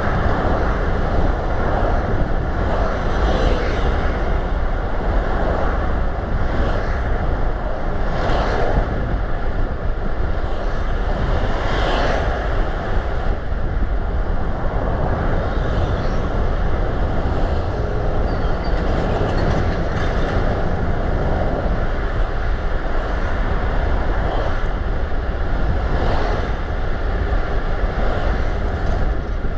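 Steady road noise of a car on the move: a constant low rumble with tyre and wind noise, and brief louder swells every few seconds.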